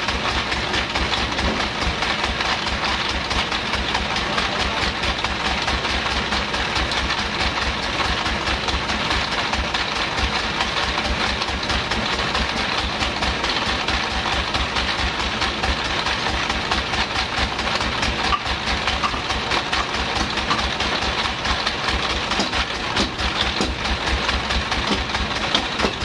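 Vertical bandsaw mill machinery running steadily, with a fast, even low throb under a constant mechanical noise.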